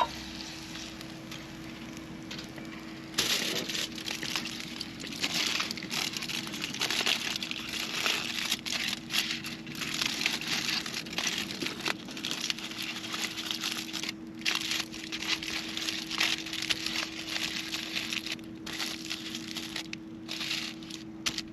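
Meat sizzling and spitting on a hot grill, a dense crackle that grows louder about three seconds in, over a faint steady hum.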